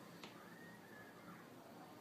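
Near silence: faint room hiss, with one faint click about a quarter second in.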